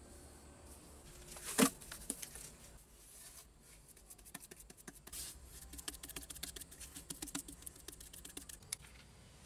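Stones knocking and scraping as they are set by hand into wet cement mortar, with the hands patting and smoothing the cement. One sharp knock comes about one and a half seconds in, then a long run of small clicks and scrapes.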